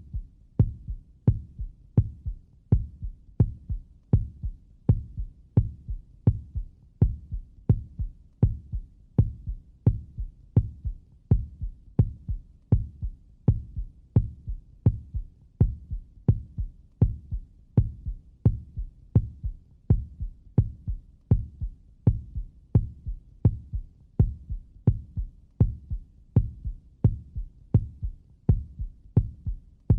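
Normal human heartbeat, the steady lub-dub of the first and second heart sounds: a pair of low thumps about once a second, even in rhythm.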